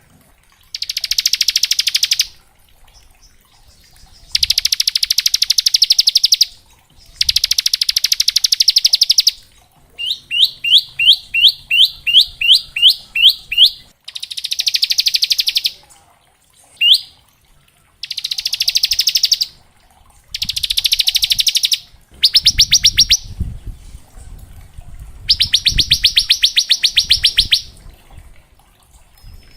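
Bar-winged prinia (ciblek) singing its rapid 'ngebren' song: repeated fast buzzing trills, each lasting one to two seconds with short gaps between. In the middle of the stretch comes a run of about ten quick rising notes.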